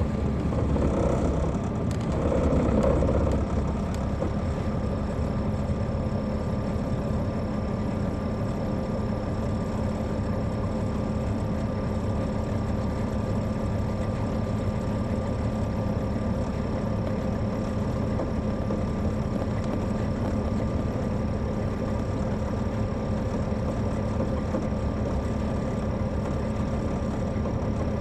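The Caterpillar C13 diesel of an MCI D4500CL coach, heard from inside the bus, idling with a steady, even hum. The first three or four seconds are louder and more uneven before it settles.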